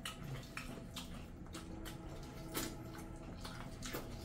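Faint wet eating sounds from people eating rice and curry with their hands: chewing and lip smacks with scattered small clicks, the clearest about two and a half seconds in.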